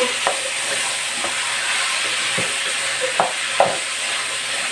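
Ground pork sizzling as it fries in bacon fat in an aluminium pot, stirred with a wooden spoon that knocks against the pot a handful of times.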